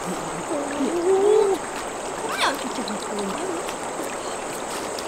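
Steady rush of flowing river water, with a person's voice briefly over it in the first second and a half.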